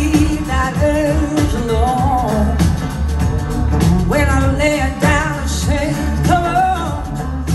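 Live blues-rock band playing a song: electric and acoustic guitars, bass and drums, with a woman singing lead.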